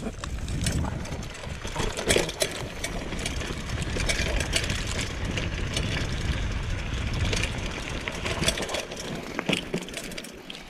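Bicycle rolling down a rutted dirt track: a continuous low rumble of wind buffeting the microphone, with tyres crunching over dirt and frequent clicks and rattles from the bike jolting over bumps. It eases off slightly near the end as the bike slows.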